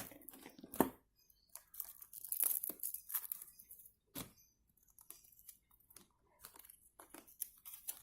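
Thin plastic snack packaging being torn open and crinkled by hand, in irregular crackling rustles, loudest about a second in and in a denser stretch two to three seconds in.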